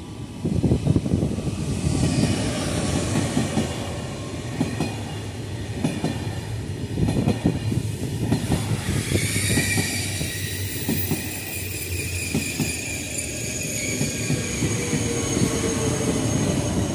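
ONCF double-deck TGV high-speed train passing close: a steady rumble of wheels on rail with rapid clatter. From about nine seconds in, a high-pitched whine rings over it.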